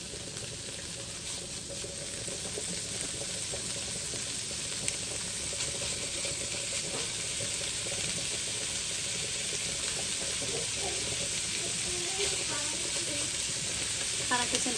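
Bacon frying in a skillet: a steady sizzle that grows gradually louder as the bacon heats and starts releasing its fat.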